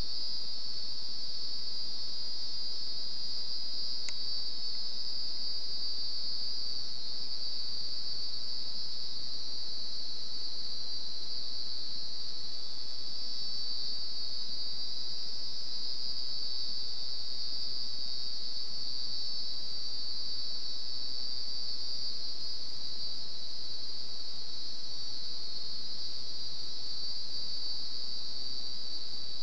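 Crickets chirping in a continuous, steady, high-pitched trill that never breaks.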